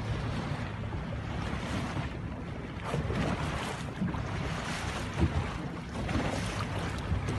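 Wind gusting on the microphone over the wash of choppy sea water.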